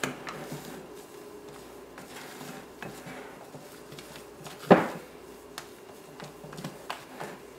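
Silicone spatula folding batter in a glass mixing bowl: scraping and light taps against the glass, with one sharper knock a little under two-thirds of the way through.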